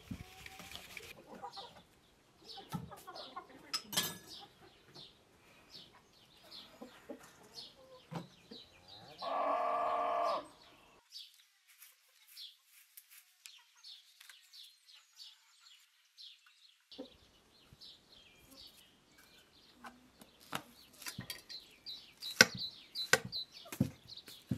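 Knife cutting raw beef on a wooden chopping board, with scattered light taps and scrapes. About nine seconds in, a farm animal gives one loud, drawn-out call lasting about a second and a half.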